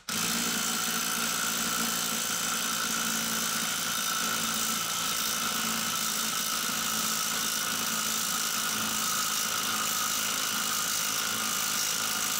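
Cordless drill running steadily under load, its chuck turning the forcing screw of a three-jaw gear puller to draw a gear off its shaft; a constant motor whine with a high hiss.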